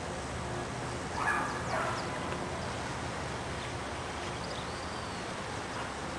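A dog barks twice in quick succession, short and mid-pitched, a little over a second in, over a steady background hiss.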